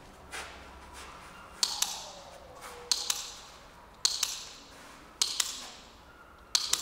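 Dog-training clicker pressed five times in a steady rhythm, about once every second and a bit, each press a sharp double click. Each click marks a correct move by the learner.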